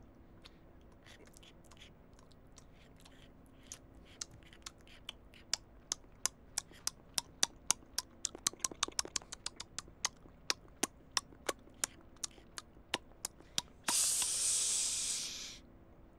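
Crisp crunches of toast being bitten and chewed, a few at first, then several a second. Near the end comes a loud hiss about a second and a half long.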